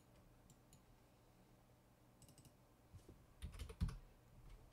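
Faint computer keyboard keystrokes and mouse clicks, a few light taps and then a short cluster of louder keystrokes about three and a half seconds in.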